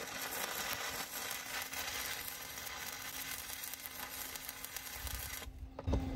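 Stick-welding arc crackling steadily as a tack weld is laid on the steel smokestack pipe. The arc cuts off abruptly about five and a half seconds in.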